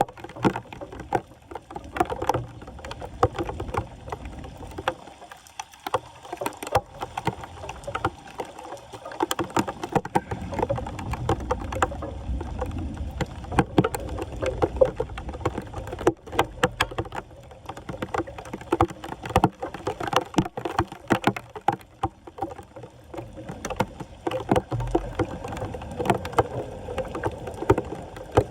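Floodwater splashing and sloshing around a clogged street drain as it is cleared, with frequent irregular knocks and scrapes.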